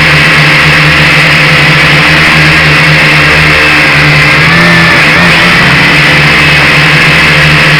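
Drone's electric motors and propellers buzzing loud and close, with a steady pitched whine; the pitch wavers briefly about five seconds in.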